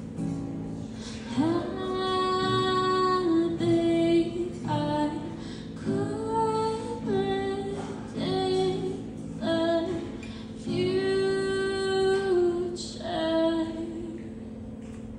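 A woman singing to her own strummed acoustic guitar, in phrases of long held notes.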